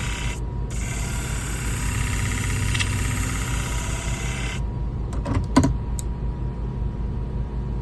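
Flat-wheel shear-sharpening machine running with a steady motor hum while a curved shear blade is ground against the spinning wheel, a loud hiss that briefly breaks early on and stops about four and a half seconds in as the blade comes off the wheel. A few sharp clicks follow as the blade is handled over the hum.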